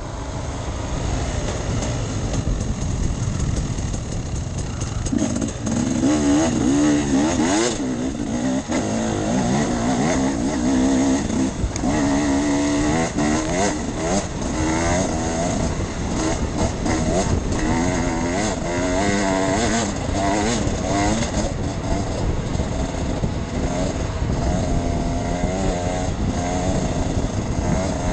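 Enduro dirt bike engine being ridden off-road, its note climbing and dropping again and again as the throttle is opened and closed. The engine pitch stands out more clearly from about five seconds in.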